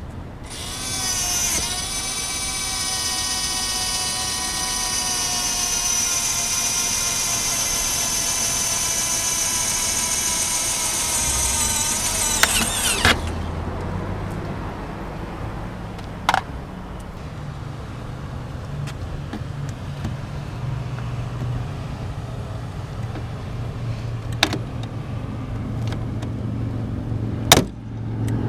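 A small electric motor whining steadily for about twelve seconds, rising in pitch as it starts and then cutting off sharply. A low steady rumble follows, with a few sharp clicks.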